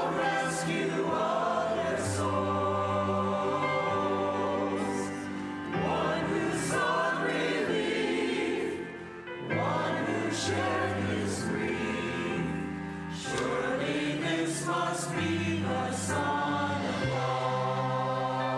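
Mixed choir of men and women singing a slow sacred anthem in phrases, with held low accompanying notes underneath and brief pauses for breath between phrases.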